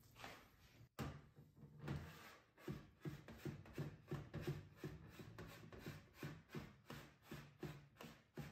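Metal spoon spreading thick mayonnaise on a plate, a faint run of soft rubbing strokes about three a second, starting about a second in.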